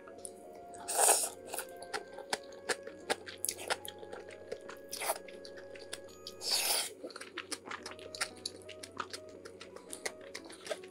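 A person eating close to the microphone: chewing with many small clicks and two louder bites, about a second in and again around six and a half seconds in.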